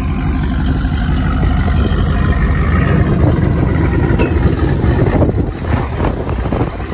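A vehicle engine running close by with a low rumble that swells in the middle and eases off near the end.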